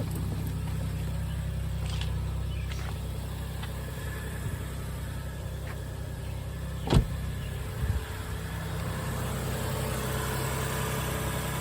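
Hybrid car's petrol engine idling steadily, started automatically by the hybrid system, running on a newly fitted 12-volt battery. A single sharp knock about seven seconds in, with a few faint clicks.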